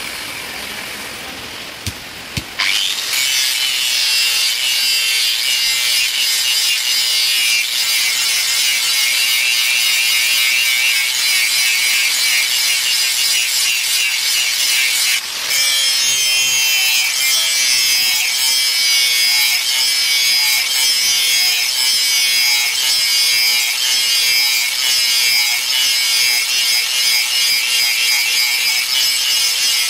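Angle grinder with an abrasive disc grinding a steel golok blade: a steady, loud, gritty hiss with a motor whine beneath it. It is lighter for the first two seconds or so, then bites in hard, with a brief let-up about fifteen seconds in.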